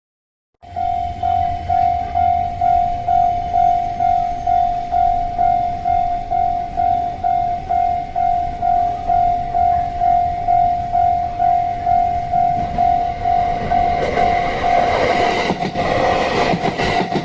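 Japanese level-crossing alarm bell ringing, a single electronic tone pulsing about twice a second. From about 14 seconds in, a train approaches, its rumble rising, with wheels clicking over rail joints near the end.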